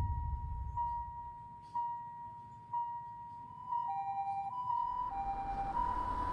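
Railroad crossing warning bell ringing with a metallic "kan-kan": single dings about once a second at first, then from about four seconds in a faster ding alternating between two pitches. A noisy hiss swells beneath it near the end.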